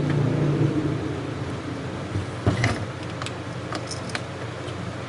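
A few light metal clicks and taps as bolts go into the exhaust silicer's end cap by hand. Under them is a low steady hum that fades during the first second or so.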